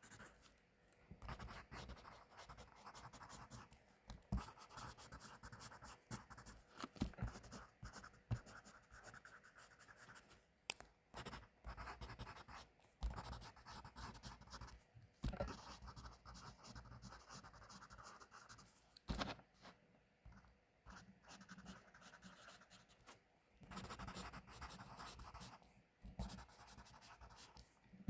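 Pencil writing on paper: faint scratchy strokes in runs, broken by brief pauses and small taps.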